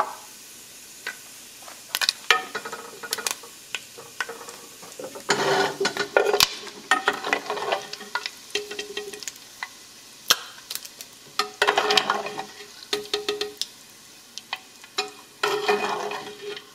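Bacon and ham pieces frying in rendered pork fat in a pot, with a utensil repeatedly scraping and clicking against the pot as the pieces are stirred and lifted out. The sharp clicks come in several bursts, some with a short metallic ring.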